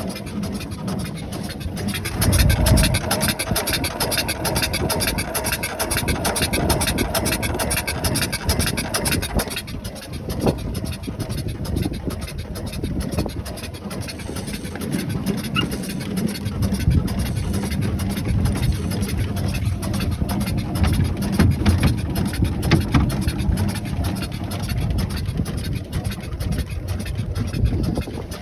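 Steam boat under way, its steam engine running with a fast, even beat over a low rumble.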